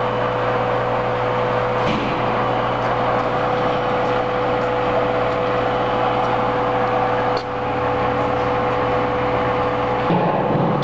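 Steady machinery drone with a constant low hum and a held tone; the tone stops near the end, and the drone dips briefly about seven seconds in.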